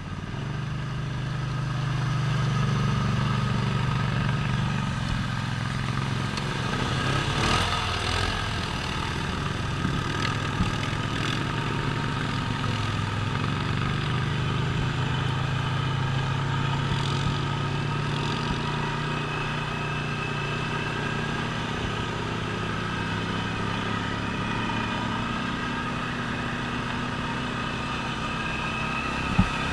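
Off-road vehicle engine running steadily under way while driving through shallow creek water, with water splashing. There is a single sharp knock near the end.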